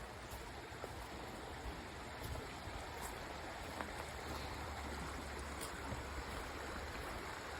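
Creek water rushing steadily over rocks, with a few faint ticks over it.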